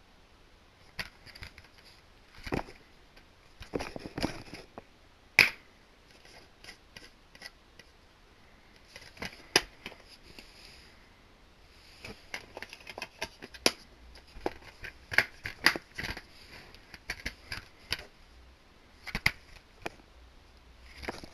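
Irregular clicks, taps and rustling of DVD cases and their packaging being handled, with a few sharper plastic snaps.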